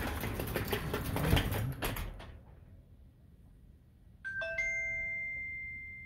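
Overhead garage door rattling and clattering as it moves for about two seconds. After a pause, a door sensor's two-note electronic chime sounds about four seconds in and rings on, fading: the alert that the door is open.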